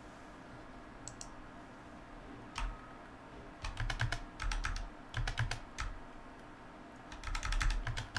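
Computer keyboard keystrokes in short runs: a single press about two and a half seconds in, quick runs of presses from about three and a half to six seconds, and another run near the end.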